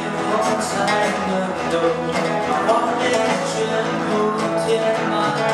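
A band playing an instrumental passage of a song, with guitar prominent and steady percussion.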